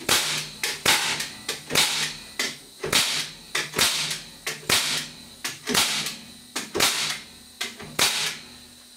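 Tacwise KDH90V pneumatic framing nailer set to single fire, driving nails one at a time into pallet boards. Sharp shots come about once a second and stop about a second before the end.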